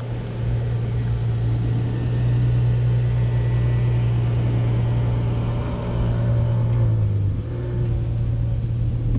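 Mobility scooter's electric drive motor humming steadily as it travels, the pitch dipping briefly about seven seconds in as it slows.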